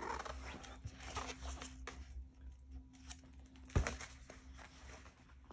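Quiet room: faint handling rustles from a hand moving on the pages of a picture book, with one sharp knock a little before four seconds in, over a low steady hum.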